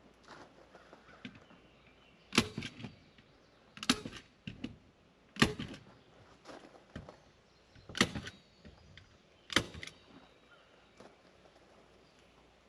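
Five sharp knocks, each trailed by two or three lighter taps, spaced one and a half to two and a half seconds apart: hand work fastening something to a cabin door.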